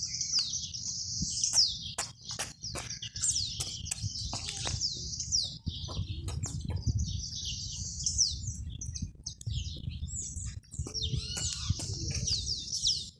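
Many small birds chirping together: a dense, unbroken run of high chirps and quick downward-sweeping calls, over a low rumble.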